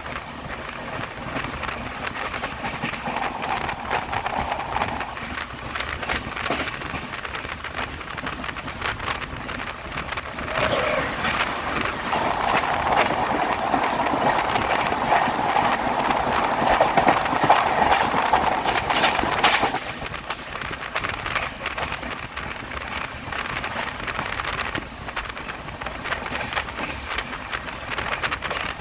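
A train running past at speed on the rails, with a steady wheel-and-rail rumble. It swells about ten seconds in, grows loudest, then drops off sharply about twenty seconds in, with rain falling throughout.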